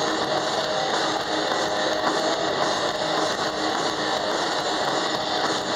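Live rock band playing loudly and continuously: distorted electric guitars, bass guitar and drums through the stage amplification.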